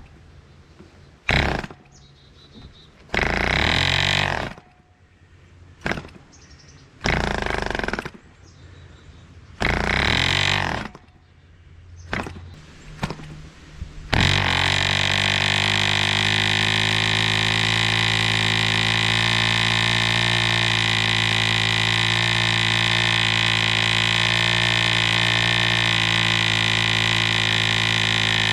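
Vintage 1947 Drone 4.85 cc diesel model airplane engine swinging a 14 x 6 propeller. It fires in several short bursts that die out, then catches about halfway through and runs steadily at an even speed.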